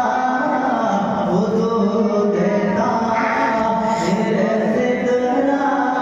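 A man singing a naat, a devotional song praising the Prophet, solo into a microphone, drawing out long held notes that bend from pitch to pitch.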